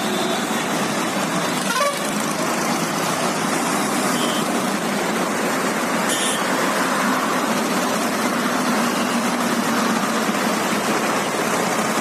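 Steady traffic noise of a long column of tractors driving past on a road, with a few brief horn toots.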